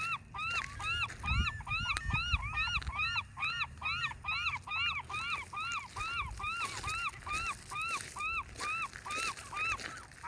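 A bird calling in a rapid, steady series of short, sharp, rising-and-falling notes, about three or four a second, over a low outdoor rumble.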